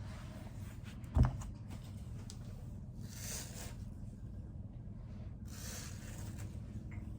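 Hair on a wig being rubbed and pressed flat, in a few soft rustling strokes over a steady low hum, with one sharp thump about a second in.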